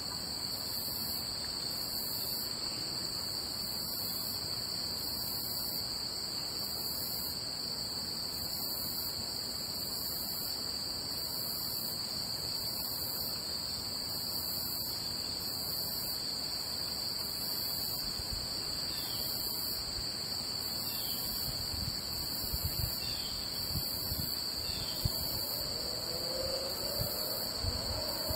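Steady chorus of summer insects: a continuous high shrill trill at two pitches, with a fainter upper layer pulsing about once a second. A few faint chirps and soft low thumps come in the last third.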